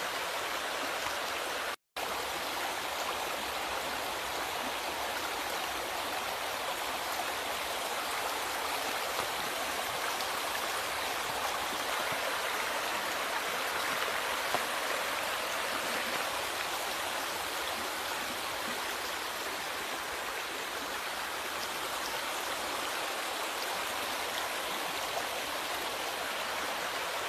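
River water flowing in a steady rush. It cuts out for a split second about two seconds in.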